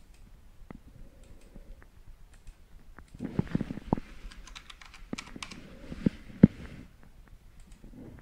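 Typing on a computer keyboard: two short runs of keystrokes, the first about three seconds in and the second about five seconds in, after a few scattered single clicks.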